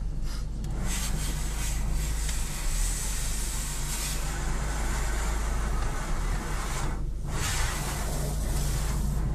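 Car wash water jets spraying across the windshield and body, heard from inside the car as a dense hiss over a steady low rumble; the spray drops away briefly about seven seconds in, then returns.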